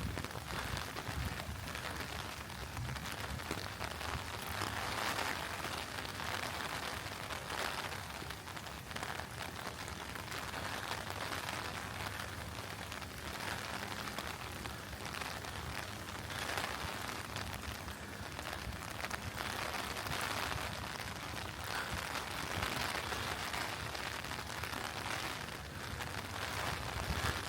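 Steady rain falling: an even, dense hiss that swells slightly now and then.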